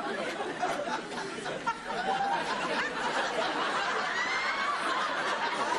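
Studio audience laughing throughout, many voices at once.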